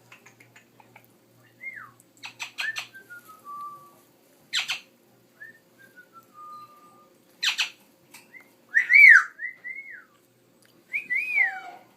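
Pet talking bird whistling: short rise-and-fall whistles and two runs of notes stepping down in pitch, broken by sharp clicking sounds. The loudest is a set of arched whistles about nine seconds in.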